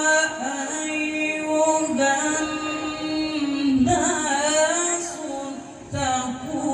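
A male qari chants the Quran in the melodic tilawah style. His high voice holds long notes and breaks into quick ornamented runs about four seconds in, then takes a short breath before starting a new phrase near the end.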